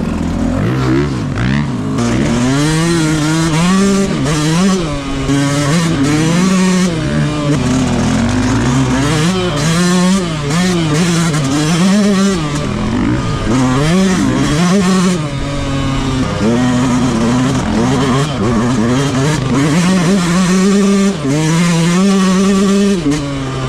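Motocross bike engine revving up and down over and over as it is ridden hard off-road, its pitch climbing and dropping every second or two.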